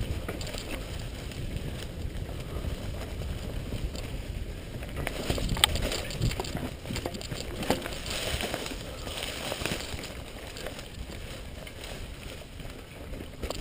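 Mountain bike rolling over leaf-littered dirt singletrack: a steady low rumble of tyres and wind on the microphone, with scattered clicks and rattles from the bike over roots and rocks and one sharp knock about six seconds in.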